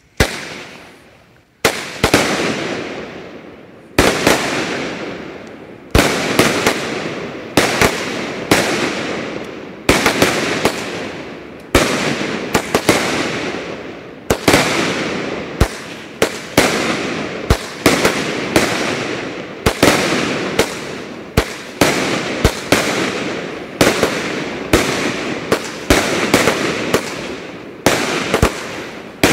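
Pyro King 'Buck Fever' 25-shot 200-gram consumer fireworks cake firing shot after shot: each tube's launch thump is followed by a sharp break report and an echo fading away, roughly one shot every second or two.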